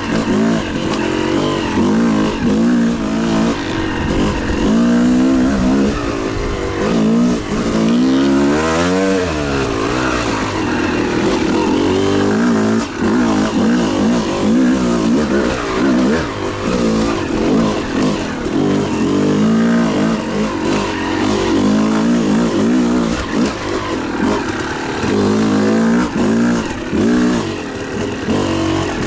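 Two-stroke dirt bike engine being ridden off-road, revs rising and falling constantly with the throttle, with a sharp rev up and back down about nine seconds in.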